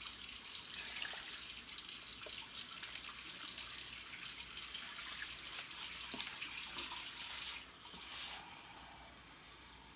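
Water pouring in a steady stream through a plastic seasoning container into a large stockpot, rinsing the leftover seasoning into the pot. It stops suddenly about three-quarters of the way through, followed by a brief faint splash.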